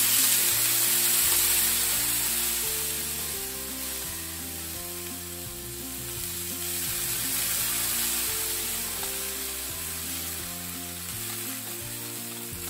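Water poured into a hot, oiled frying pan of browned gyoza dumplings: a loud hiss and sizzle as the water hits the oil, settling after a couple of seconds into a steady sizzle as the pan steams the dumplings.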